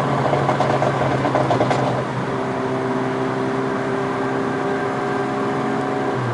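Stage 2+ tuned Seat Ibiza Cupra's 1.4 TSI turbocharged four-cylinder engine and exhaust running at a steady speed. For the first two seconds it sounds rough, with a rapid pulsing and one sharp crack. It then settles into an even drone.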